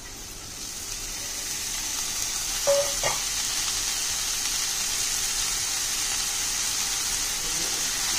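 Chopped radish leaves sizzling as they go into hot oil with fried onion and green chilli in a kadhai: a steady frying hiss that builds over the first second or so and then holds. A brief metallic clink about three seconds in.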